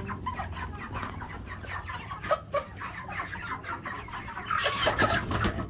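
A crowd of white meat chickens clucking and peeping in plastic poultry crates, with a cluster of crate knocks near the end as the lids are handled.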